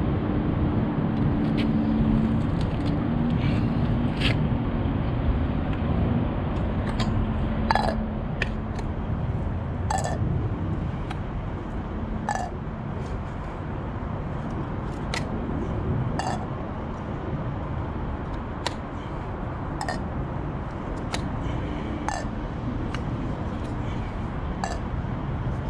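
Light metallic clinks, one every second or two, from a hand tool knocking against an aluminium truck wheel and its lug nuts, each with a short falling ring. A steady low rumble runs underneath.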